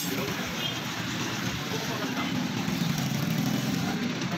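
Steady low rumble of engine or traffic noise, with people talking in the background.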